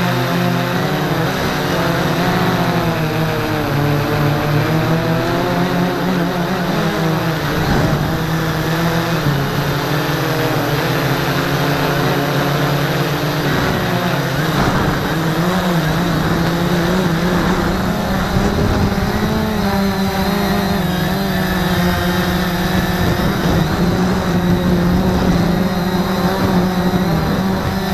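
Cheerson CX-20 quadcopter's brushless motors and propellers heard from the camera mounted on the drone: a steady loud hum made of several pitches that bend up and down together as the motors speed up and slow down in flight.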